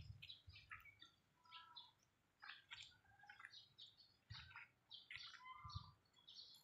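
Faint, repeated short chirps of small birds, with a few low soft thumps in between.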